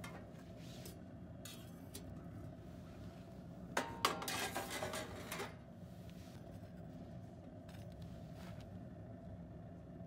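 Steel wire oven rack sliding out of a rocket stove's oven: a metal clatter and scrape with ringing, about four seconds in and lasting about a second and a half.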